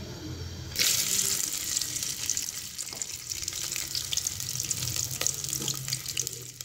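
Sliced onions hitting hot cooking oil in a pot: the oil suddenly starts sizzling about a second in, then keeps frying steadily with many small crackles and pops.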